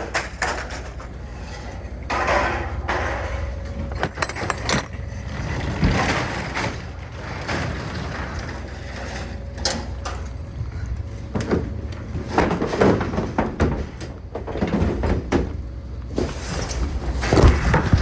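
A vehicle engine runs with a steady low rumble, with irregular clattering and scraping noises over it.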